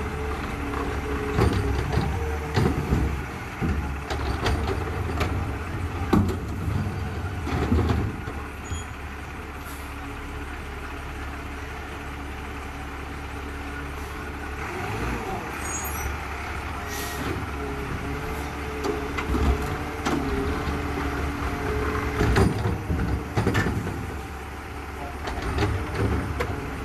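Garbage truck engine running at a steady low rumble, with repeated clanks and bangs of trash being collected, mostly in the first eight seconds and again near the end.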